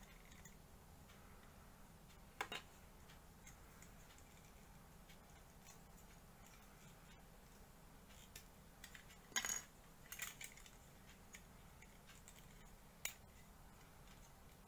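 A few short plastic clicks and taps from SD Gundam model-kit parts being handled and fitted: one about two and a half seconds in, a small cluster a little past the middle, and one more near the end, over faint hiss.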